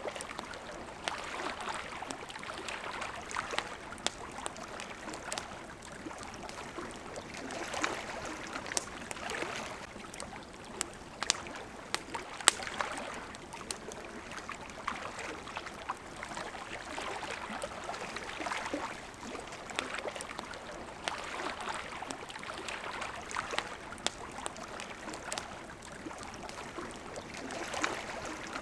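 Water lapping and washing against a riverbank in irregular swells every few seconds, with a campfire crackling throughout in sharp pops and snaps; the loudest pop comes about twelve seconds in.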